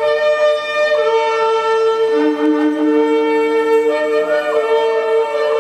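Shofar sounding a long, steady held note. A second, lower note joins about two seconds in, and the notes bend near the end.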